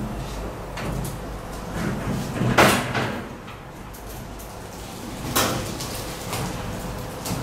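Knocks and clunks from handling a CO2 laser cutter's metal cabinet and lid: a loud clunk about two and a half seconds in, another about five seconds in, and a few lighter clicks.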